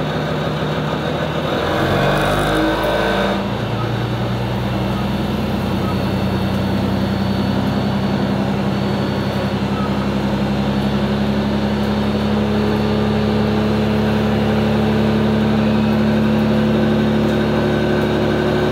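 Diesel railcar engine heard from inside the car, building power as the train pulls away from a standstill, with a short burst of noise about two seconds in. It then runs steadily under load, its pitch creeping upward as the train gathers speed.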